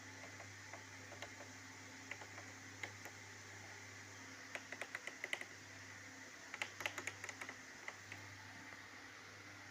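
Light, quick clicks like keys or buttons being pressed, a few scattered at first and then two close runs about halfway through, over a steady faint electrical hum.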